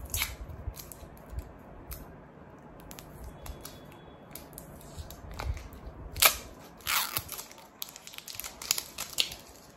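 A mascara's packaging handled and opened by hand: scattered clicks and short rustling scrapes, strongest in a cluster about six to seven seconds in and again near the end.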